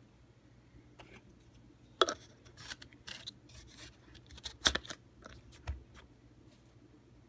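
Hands handling a plastic no-spill paint cup: a run of rubbing and scraping noises that begins about two seconds in, with a sharp knock at its start and a louder one a little before five seconds.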